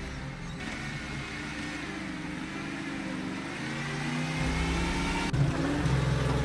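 A timber truck's engine working under load, running steadily with a faint whine and slowly getting louder, its low note shifting and growing heavier about four seconds in.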